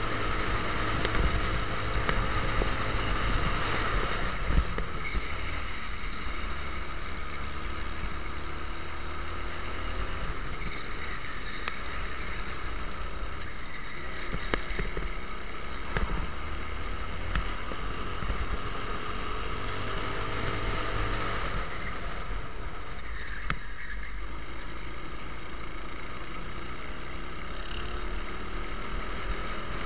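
Racing kart engine running hard on track, its pitch repeatedly rising under acceleration and falling off for the corners, with wind rumble on the onboard microphone.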